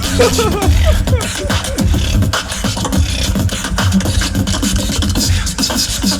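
Tag-team beatboxing: a dense, fast stream of mouth-made drum hits over deep vocal bass. A sliding pitched vocal line comes in near the start.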